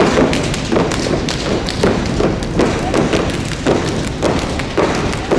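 Step team stepping in unison: stomping feet and clapping hands beat out a steady rhythm of sharp thuds, about two to three a second.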